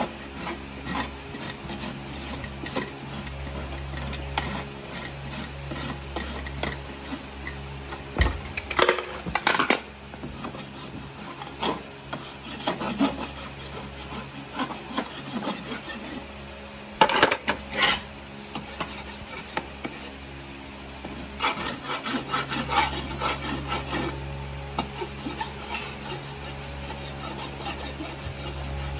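Farrier's hoof rasp filing a shod horse's hoof, in repeated rubbing strokes, with a few louder, sharper strokes about nine and seventeen seconds in.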